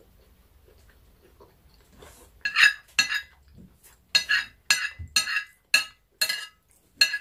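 A metal spoon clinks against a ceramic dinner plate while food is gathered from it: a string of about nine sharp, ringing clinks, starting about two and a half seconds in.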